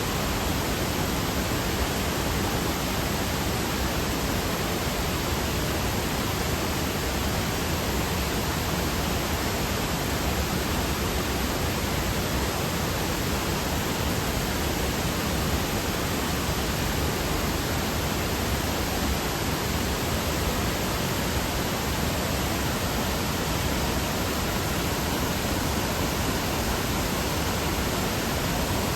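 Steady rush of a waterfall and its fast-flowing river, an even hiss of water with no change in level.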